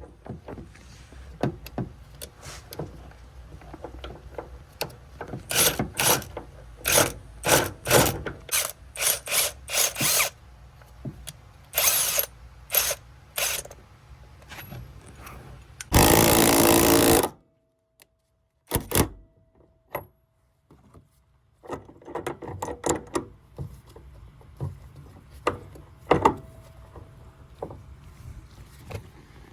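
Ratchet clicking in short strokes, cranking a nut splitter down on a seized shock nut. A loud burst of noise lasting about a second and a half comes just past the middle.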